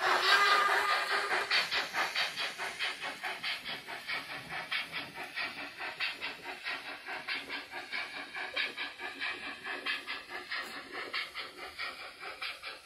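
Steam locomotive chuffing at a steady beat of about four chuffs a second, with hissing, as from the model steam locomotive on the layout. A brief high tone sounds near the start.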